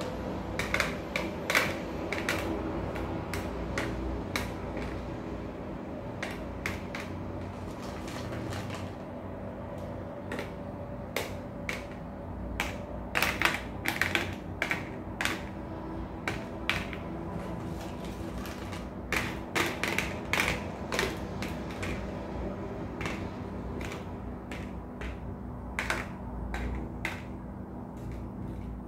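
Raisins dropped one by one into empty thin clear plastic containers, each landing as a light, sharp click on the plastic bottom. The clicks come irregularly, sometimes in quick runs of several, over a steady low hum.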